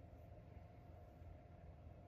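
Near silence: a faint, steady low hum and hiss of room tone.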